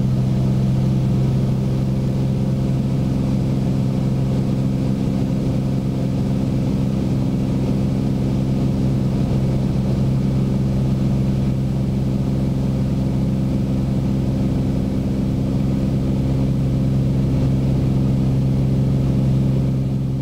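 Beechcraft Bonanza's single piston engine and propeller running at a steady cruise drone, heard from inside the cabin.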